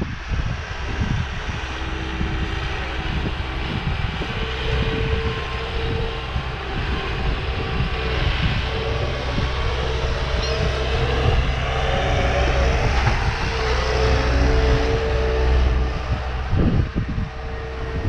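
Engine of a beach trash-collection truck running with a steady hum and a few held tones, growing louder after the middle and falling off near the end. Wind gusts on the microphone near the end.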